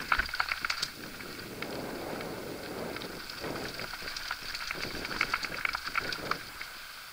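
Mountain bike rolling fast over a rocky dirt trail: tyres crunching on gravel and loose stones, with quick rattling clicks as the bike shakes over the rough ground.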